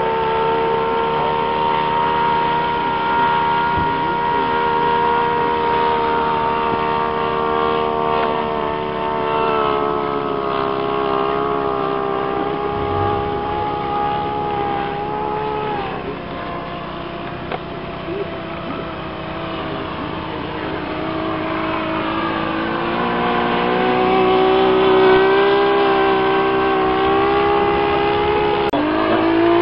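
Motor of a radio-controlled model Loening amphibian biplane running in flight at a steady pitch. The pitch drops about halfway through, dips lower a little later, then climbs back up and rises sharply near the end as the sound grows louder.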